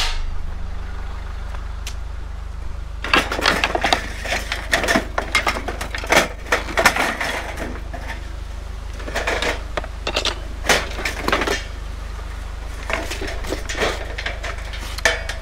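Scrap metal being handled: a run of irregular clanks, knocks and rattles starting about three seconds in, over a steady low rumble.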